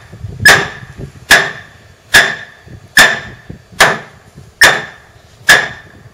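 Hammer blows knocking an ulin (ironwood) deck post into its joint in the frame: seven evenly spaced strikes a little under a second apart, each with a short ring.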